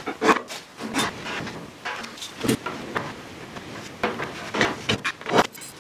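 A spirit level knocking and scraping against a steel half oil drum as it is set in place and moved for marking out, giving scattered light clicks and knocks with faint rubbing between them.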